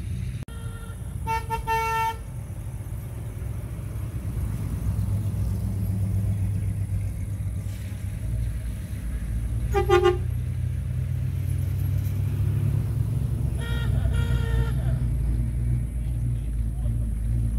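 Classic cars driving slowly past with a steady low engine rumble, and car horns tooting three times: about a second and a half in, briefly and loudest about ten seconds in, and again about fourteen seconds in.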